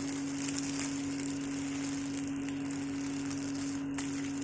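A steady low hum with a faint even hiss, unchanging throughout.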